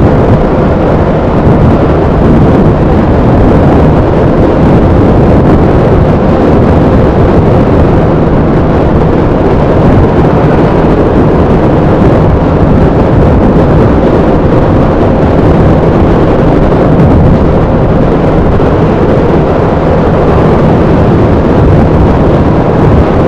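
Loud, steady wind noise rushing over the microphone of a Yamaha Aerox scooter rider at speed, with the scooter's engine droning steadily underneath.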